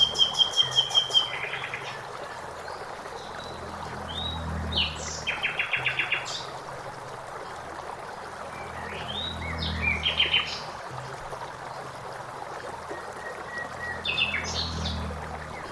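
Blackbird singing short phrases of rapid trills and high twitters, one every four to five seconds, over the steady rush of flowing water.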